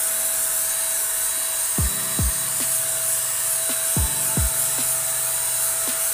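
Ingco electric spray gun running while spraying paint: its built-in blower motor gives a steady rushing hiss with a thin steady whine. From about two seconds in, a background music beat of deep bass-drum thumps in pairs comes in over it, repeating about every two seconds.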